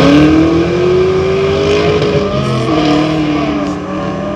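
Volkswagen Golf GTI Mk6's turbocharged 2.0-litre four-cylinder accelerating hard, its pitch rising steadily. About two seconds in the pitch drops at an upshift, and the engine pulls again in the next gear.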